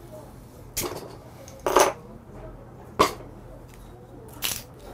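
A beer bottle and a green soju bottle being opened: four short, sharp clicks and clinks of caps and glass, the loudest about two seconds in.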